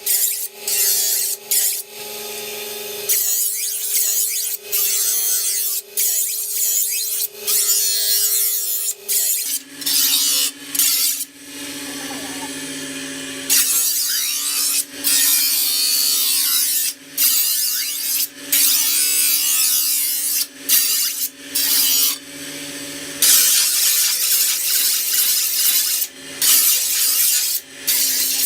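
Steel sickle blade being filed or ground: a run of rasping strokes of metal on metal, each half a second to two seconds long with short breaks between, over a steady low hum.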